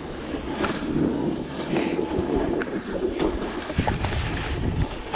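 Snowboard sliding down packed snow, a steady scraping hiss from the board on the snow with a few short clicks, mixed with wind buffeting the microphone.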